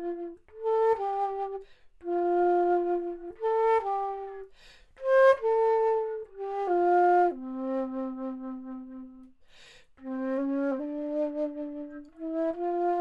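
3D-printed baroque transverse flute (traverso), a copy of a Naust model pitched at A=400, played solo. It plays a slow line of held notes, one long low note near the middle, with quick breaths taken between phrases.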